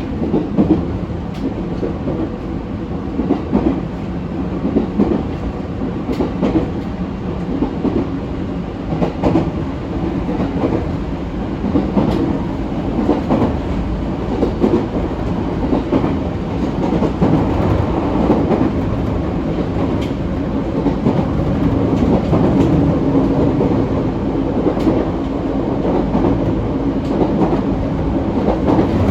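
Echigo Tokimeki Railway ET127 series electric train running along the line, a steady rumble of wheels on rail with scattered clicks of the wheels passing over rail joints; it grows slightly louder in the second half.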